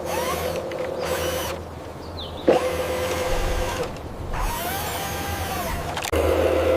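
A small electric motor and gearbox on an RC toy vehicle, running with a steady whine. There is a brief sharper sound about two and a half seconds in. The whine jumps suddenly louder about six seconds in.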